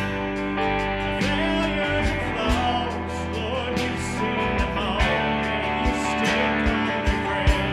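Contemporary Christian worship song playing, a band with strummed guitars.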